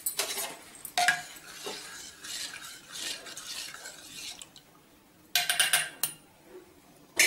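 Metal spoon stirring puréed tomato in a stainless-steel bowl, scraping softly against the bowl with a ringing clink about a second in. A few loud ringing clinks of spoon on steel follow about five and a half seconds in, and another comes near the end.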